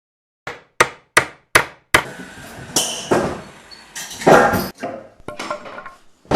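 Hammer striking nails: five sharp blows at about two and a half a second, then irregular knocking and clatter, and one more hard blow near the end.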